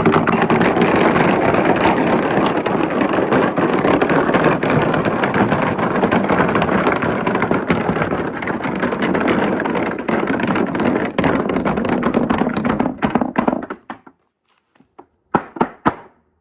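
Many marbles rolling and clattering down a marble run, a dense continuous rattle that dies away about 14 seconds in, followed by a few separate clicks near the end as the last marbles settle.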